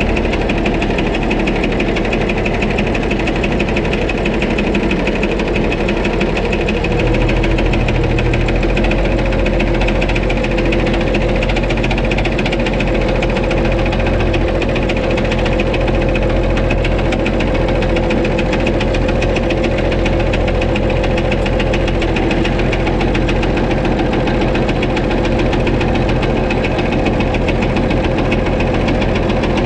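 White 2-155 tractor's diesel engine running at a steady speed with a heavy, rapid internal knock, a hammering inside the engine that the owner jokes may be a connecting rod about to let go. About seven seconds in, the engine note shifts slightly.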